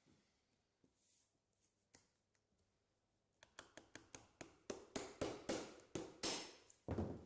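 A hammer knocking 40mm poly pins in to fix aluminium kerb edge trim to the roof: a quick run of about a dozen sharp taps, two to three a second, growing louder towards the end.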